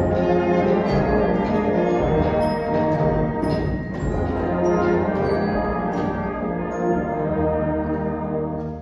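Primary school concert band playing, brass and woodwinds together. The music dips briefly just before the end.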